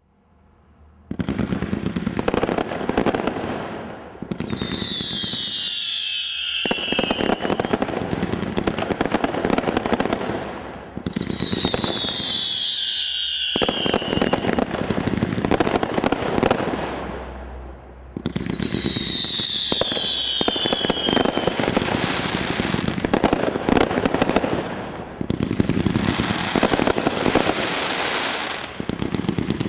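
Brothers Airboss II 100-shot barrage, a combination roman candle cake, firing rapid volleys of shots and bursts. It starts about a second in and comes in four waves with brief lulls between. A high falling whistle sounds at the start of three of the later waves.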